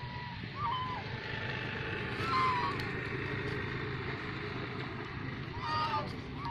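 Domestic geese giving three short, soft honking calls, spaced a few seconds apart, over a steady low background rumble.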